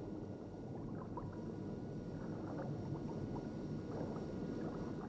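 Underwater film sound of the Lotus Esprit submarine car gliding beneath the sea: a steady low rumble with small scattered bubbling gurgles.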